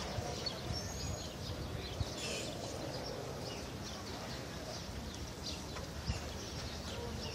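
Outdoor ambience: steady background noise with irregular low thumps of wind buffeting the microphone, and faint short bird chirps scattered through it.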